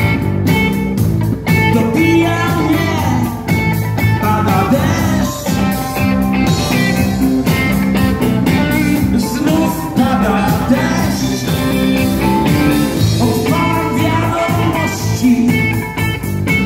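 A rock band playing live, recorded from the audience: a male singer sings over electric guitar and drums.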